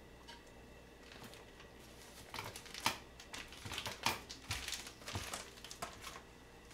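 Empty paper-and-plastic meal-kit packets crinkling and crackling as they are gathered up and pushed into a plastic tray. It starts about two seconds in as an irregular run of sharp crackles.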